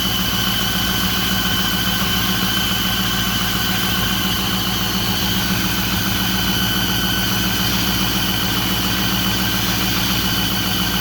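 Ford 6.4 Power Stroke twin-turbo V8 diesel idling, with a steady high-pitched noise over it. The owner puts the noise down to leaking exhaust manifold gaskets.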